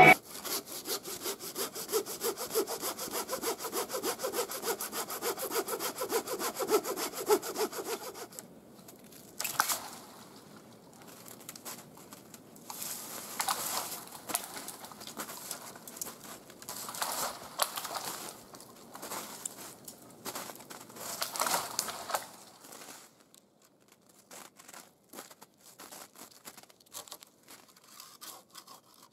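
Hand saw cutting through a thin tree trunk: a fast, steady run of strokes, then after about eight seconds shorter bouts of sawing with pauses, growing faint near the end.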